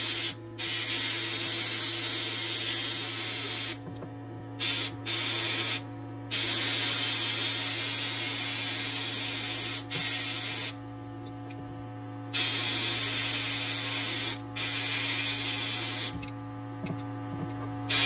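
Abrasive blasting in a blast cabinet: the handheld blast gun hisses with air and grit in long bursts, cutting out for short pauses several times, the longest about eleven seconds in, as paint is stripped from a small die-cast metal part. A steady low hum runs underneath.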